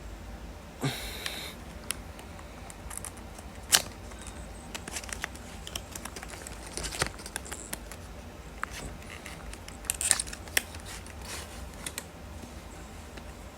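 Packaging being opened by hand: a short cutting or rasping sound about a second in, then scattered clicks, taps and crinkles of box and plastic being handled.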